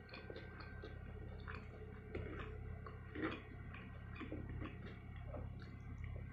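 Close-up chewing and small wet mouth clicks from someone eating rice and fish with their hands, with one sharper click a little past halfway. A steady low hum runs underneath.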